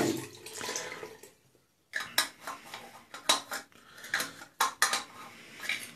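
About a dozen light clinks and knocks of hard containers being handled, coming irregularly from about two seconds in.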